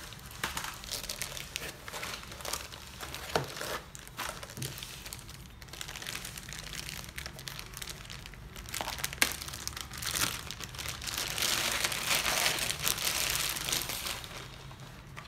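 The laptop's clear plastic protective bag crinkling and rustling as it is handled and unwrapped, with a few sharper clicks. The crinkling grows denser and louder near the end.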